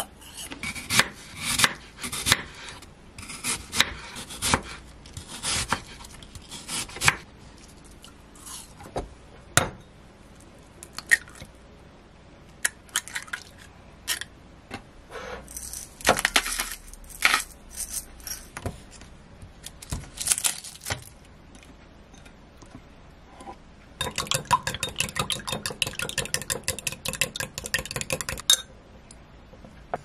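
Kitchen prep sounds: scattered knocks and clinks of utensils and dishes, then about four seconds of fast, even clicking as eggs are beaten in a glass mug.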